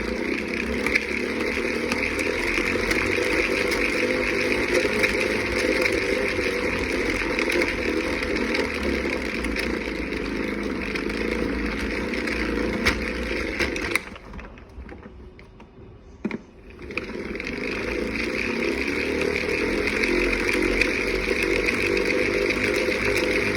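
Vacuum cleaner wheel spinning fast, making a steady rattling buzz like an old propeller plane's engine. About two-thirds of the way through it drops away for a few seconds, with a single click, then starts up again.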